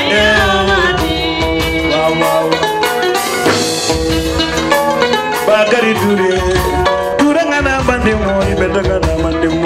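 Live Gambian dance-band music: drum kit and percussion keeping a steady beat under pitched melody instruments, with singing at times.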